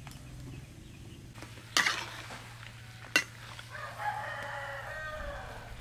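Two sharp clanks of a metal spatula against a wok, then a rooster crowing once near the end, a single call of about a second and a half that falls slightly in pitch.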